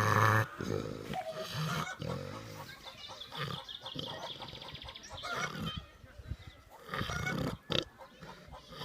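Snoring like a pig, in uneven snorts of varying length, loudest right at the start.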